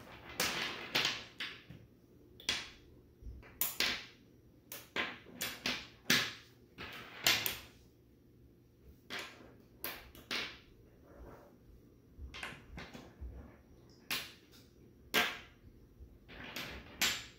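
Magnetic building sticks and steel balls clicking together and knocking on a wooden tabletop as they are fitted into a shape: irregular sharp clicks, with short pauses between them.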